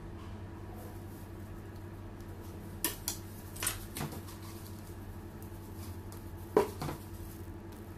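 Short clinks and knocks of kitchen utensils against hard surfaces, coming in three quick pairs with the loudest near the end, over a steady low hum.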